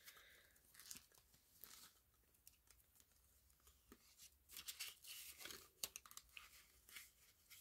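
Faint rustling and crinkling of paper banknotes being folded and tucked into a cash envelope pouch, with a few soft clicks and taps from handling the binder; the handling sounds pick up about halfway through.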